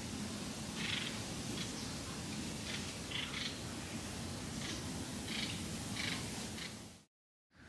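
Steady outdoor background hiss with faint, short, high chirps scattered every second or so. The sound fades out to brief silence near the end.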